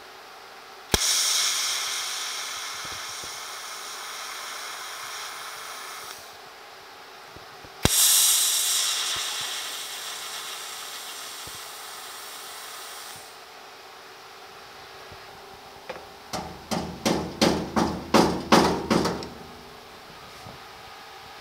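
TIG welder tack-welding a thin sheet-metal patch twice: each arc starts with a sharp crack and runs as a high-pitched hiss that fades over about five seconds. Near the end comes a quick run of about ten taps that knock the tacked patch down flush.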